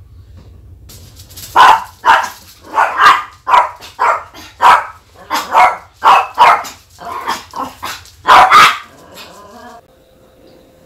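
A dog barking repeatedly, about a dozen loud, short barks over some seven seconds, the last two the loudest.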